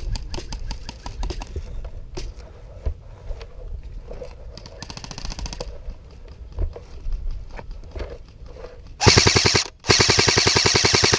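Airsoft gun firing full-auto close by: two loud rapid bursts near the end, the second lasting over a second. Fainter airsoft fire from other players earlier, including a short distant burst about halfway through.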